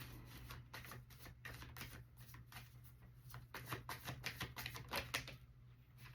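Tarot cards being shuffled and handled: a run of faint, quick card flicks and snaps, densest about four to five seconds in.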